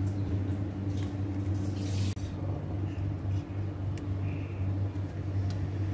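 A steady low hum with a brief dropout about two seconds in, and a few faint soft handling noises.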